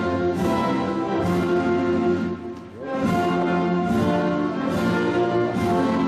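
Orchestral music with brass and strings playing slow, sustained chords, dipping briefly about two and a half seconds in before the full ensemble comes back.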